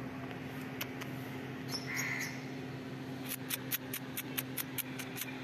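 A cat gives a brief, faint mew about two seconds in, over a steady low hum. Near the end comes a quick, even run of about ten light clicks, some five a second.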